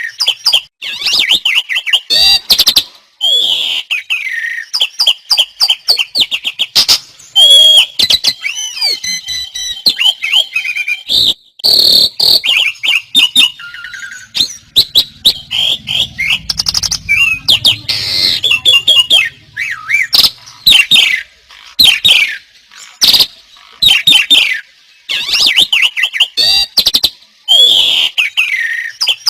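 Several songbirds singing at once, loud and continuous: rapid chirps, trills and whistled glides overlapping without a break.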